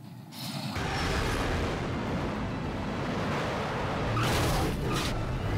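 Film car-chase soundtrack: the Tumbler Batmobile's heavy engine and tyre noise, coming in loud about a second in and swelling briefly past the four-second mark.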